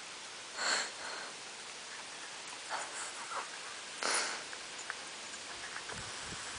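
Dalmatian sniffing at tomatoes on the ground: two strong sniffs about a second in and about four seconds in, with fainter sniffs between and a few low thumps near the end.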